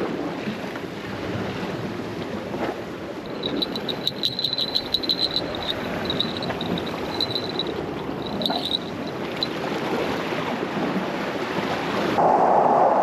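Wind blowing on the microphone and sea waves washing against a rocky shore. A high, broken chirping runs between about three and nine seconds in. The wind and surf noise turns louder about twelve seconds in.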